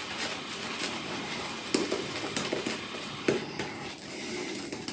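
A two-band Manchurian badger shaving brush scrubbing tallow lather over the face: a steady, wet, bristly rubbing with a few sharp clicks.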